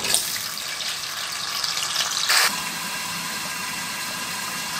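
Potato slices frying in hot oil in a kadai: a steady sizzling hiss, with a brief louder burst about two and a half seconds in.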